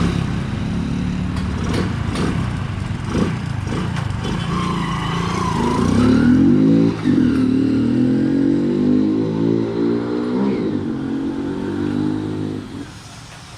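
Hero Honda motorcycle's single-cylinder engine, its air filter removed, running with short throttle blips, then revved higher for a few seconds in the middle before the revs fall away. The engine note drops off sharply near the end.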